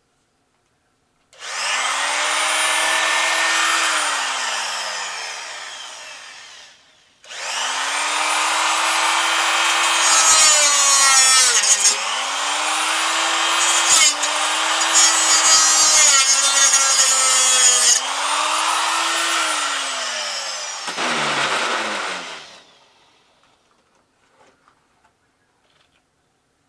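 Harbor Freight cut-off tool spinning up to a steady high whine, then coasting down over a few seconds. It is started again and cuts into the vacuum cleaner, its pitch dipping with a gritty crackle each time the wheel bites, before it is let off and winds down.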